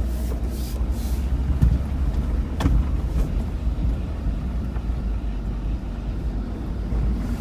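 Low rumble of a 2001 Jeep Grand Cherokee being driven, heard from inside the cabin, with a grinding that the driver blames on a bad brake caliper. A sharp knock comes a little over two and a half seconds in.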